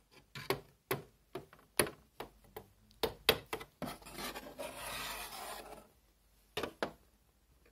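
Playmobil toys being handled and moved about a playset: about ten light, irregular clicks and knocks, then a couple of seconds of rubbing and scraping, then two more clicks near the end.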